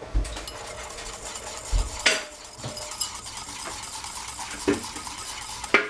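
Freshly made mayonnaise being stirred, with lemon juice just added: a utensil scraping and clicking against the bowl, with a few sharper knocks, the loudest about two seconds in and another near the end.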